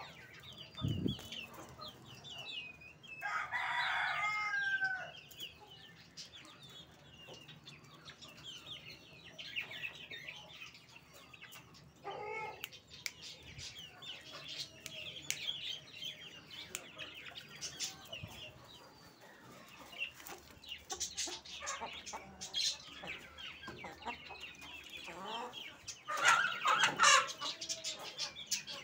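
Young Aseel chickens and chicks peeping and clucking all through. About three seconds in there is one louder call of about two seconds, crow-like. Near the end comes a loud burst of scuffling and wing flapping.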